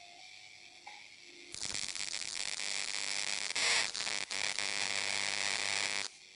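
DIY plasma speaker's high-voltage arc buzzing and crackling harshly, starting about a second and a half in and cutting off suddenly near the end.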